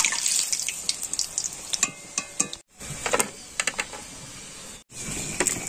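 Hot oil sizzling in a metal karahi as deep-fried pastries are scooped out with a wire mesh skimmer, with many sharp metallic clinks of the skimmer against the pan and plate.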